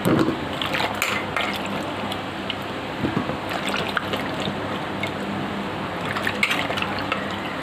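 Water sloshing and splashing as a hand swishes chopped ridge gourd and tomato pieces around in a pot of water to wash them. A louder splash comes right at the start, then a steady slosh with scattered small clicks.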